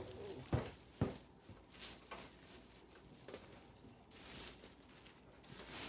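Handling noise from a plastic wall clock and its packaging: two sharp knocks within the first second, then a few lighter clicks and soft rustles.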